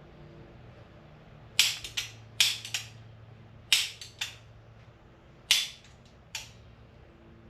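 Work clatter: a series of about eight sharp knocks from tools and parts being handled during the installation work, several in quick pairs, over a faint low steady hum.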